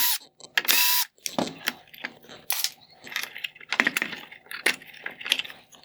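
Irregular clicks, scrapes and small metallic clinks of a screwdriver backing Phillips head screws out of a plastic headlight housing and the screws being handled. There are two louder bursts about a second apart at the start.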